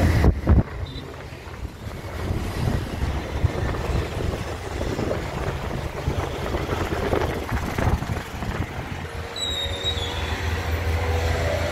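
Road traffic noise, an even steady wash of sound, with a brief high-pitched squeak about nine and a half seconds in.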